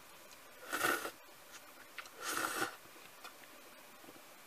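Two noisy slurps of instant noodles sucked in through the lips with chopsticks, each about half a second long, the first about a second in and the second a little past the two-second mark.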